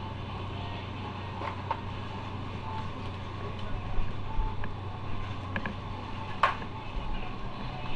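Motorcycle engine running steadily, with scattered light clicks and one sharp click about six and a half seconds in.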